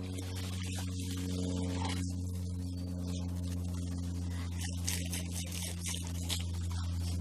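A steady low hum with overtones, under irregular hissing noise.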